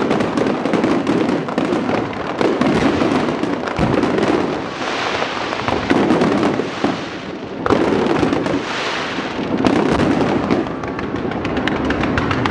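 Fireworks going off in a dense, continuous crackle of many small sharp bangs. A brighter hissing crackle swells up twice, about five seconds in and again near nine seconds.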